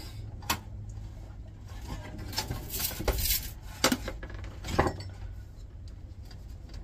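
Sheet-steel tower chassis clanking and clinking as it is handled and tipped over onto its side: a run of sharp metallic knocks, the loudest about five seconds in.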